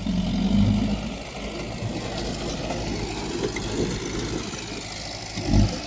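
Diesel engine of earthmoving machinery running, louder for about the first second, with a brief loud low thump near the end.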